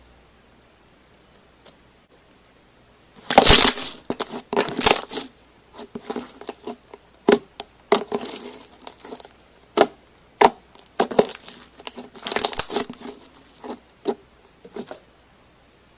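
Slime being squeezed and stretched by hand, giving irregular crackles and sharp pops, starting about three seconds in, with denser crackling bursts twice.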